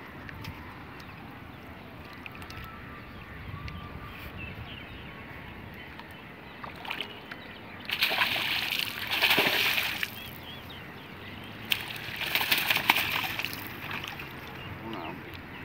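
Water splashing as a hoop net on a pole is plunged and swished beside a canoe, in two loud bouts of about two seconds each, roughly eight and twelve seconds in.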